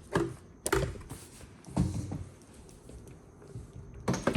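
A few separate knocks and bumps of plastic as the air fryer oven is handled and its plastic door is opened, then a rustle near the end.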